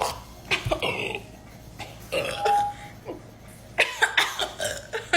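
A person burping several times, short burps with a longer, louder one about two seconds in.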